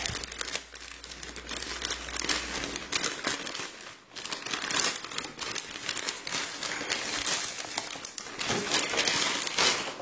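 Postal parcel packaging being torn and crinkled open by hand: a continuous, uneven rustling and crackling.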